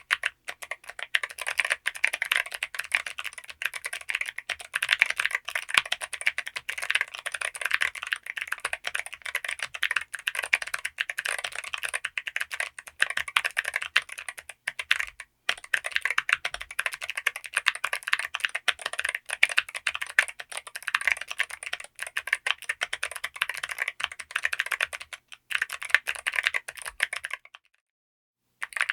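Continuous fast typing on a TKD Cycle7 gasket-mounted mechanical keyboard with an aluminium case and FR4 plate: a dense stream of key clacks, with a brief pause about halfway and a second of silence near the end.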